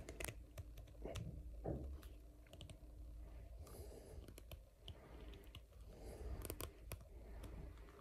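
Faint, irregular clicks and scrapes of a screwdriver tip slipping and grinding in the head of a small, very tight wheel screw on a robot vacuum's wheel module. The screw head is stripping under the force.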